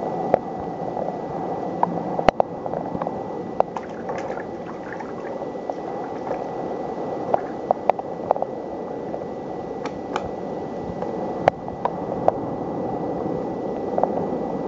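Water dripping and splashing into standing water on a flooded floor, in irregular sharp drops over a steady rushing noise.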